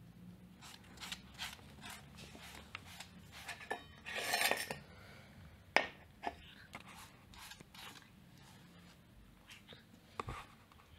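Small scattered clicks and scrapes of cats nosing at an emptied metal food plate on a wooden floor, with one longer scrape about four seconds in and a sharp click near six seconds.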